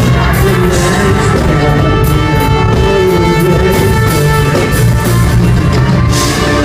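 Live band music played loud at a concert: a rock and ska-style instrumental passage with bass, drums and guitar, no singing.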